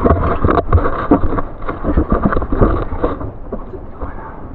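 A person crawling over wet gravel and cobbles in a low cave passage: irregular scraping and knocking of body and gear on stone, with the low rumble of a jostled camera, dying down after about three seconds.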